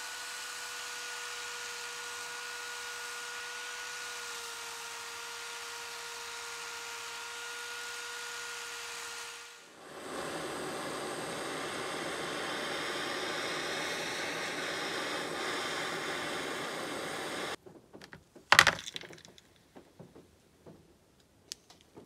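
An electric drill spins a wire wheel brush against a bent metal rod, a steady motor whine under the scratchy brushing, for about ten seconds. Then a blowtorch flame hisses steadily as it heats the rod for about seven seconds. It ends with light handling knocks and one sharp, loud knock.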